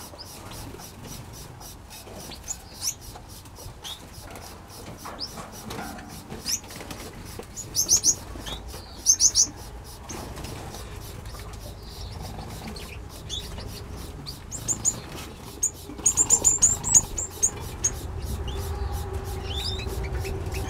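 Small aviary birds, finches and Bourke's parrots, giving short high chirps and calls, with two loud runs of rapid chirping about eight seconds in and again about sixteen seconds in. A low rumble builds near the end.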